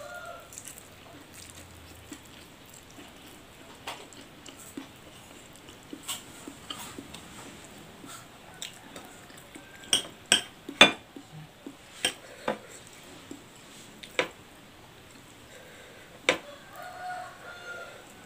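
Metal spoon clinking and scraping against a ceramic plate while rice and noodles are scooped up and eaten, with a cluster of sharp clinks around the middle and another near the end.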